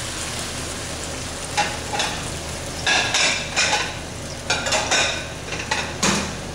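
Vegetables and vegan beef sizzling in a hot wok as a metal ladle scrapes and tosses them. Short clusters of ladle scrapes come about one and a half seconds in, around three seconds, near five seconds and again near the end, over a steady frying hiss.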